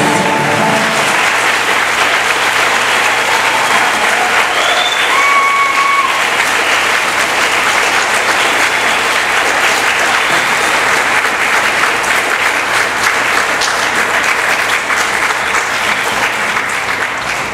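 Audience applauding steadily after a song ends, as the last notes of the acoustic guitar and sanshin die away in the first second. A few short whoops from the crowd come through a few seconds in.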